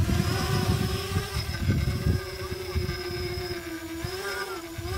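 HJ-Y3 tricopter's three electric motors and propellers whining steadily as it lifts off and flies, the pitch dipping and then rising briefly around four seconds in as the throttle changes.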